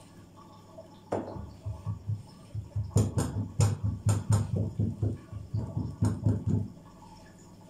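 Hands pressing and patting a date-filled dough roll on a silicone mat on a table: a quick run of dull thumps with a few sharper knocks, stopping about a second before the end.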